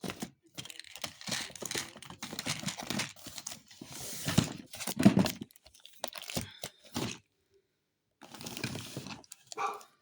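Rustling and crinkling handling noises in irregular bursts, with a short silent gap past the middle.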